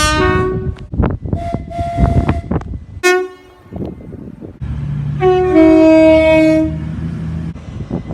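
Train horns sounding in several separate blasts: a short two-note blast at the start, a brief sharp toot about three seconds in, then a longer two-tone blast from about five to nearly seven seconds over the train's low running rumble and rail clatter.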